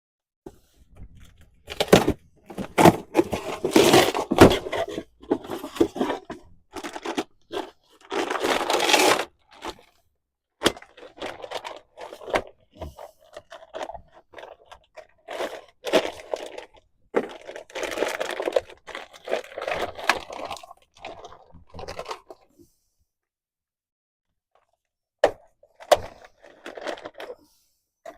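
Irregular bursts of scraping, crunching and crinkling as brake parts are worked by hand, in stretches of a second or two with short pauses, and a quiet spell a few seconds before the end.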